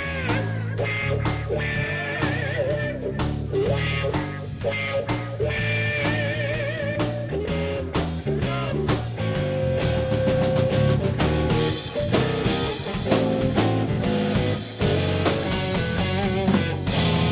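A live trio of electric guitar, bass guitar and drum kit playing. The guitar's lead line has notes that waver in pitch, over moving bass notes and steady cymbal and drum strokes.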